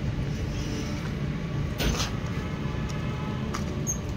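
Steady low hum of a standing diesel train, with one heavy knock about two seconds in and a couple of lighter clicks near the end, as cargo is handled in the brake van.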